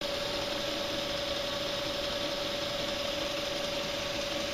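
Electric motor of a scissor-sharpening machine running steadily, a constant hum over an even whir, with no blade grinding against the wheel.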